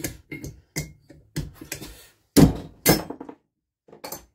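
A run of irregular metal knocks and clunks as a spanner is heaved against the flywheel nut of a seized BSA engine, trying to turn it over. The two loudest clunks come about two and a half and three seconds in.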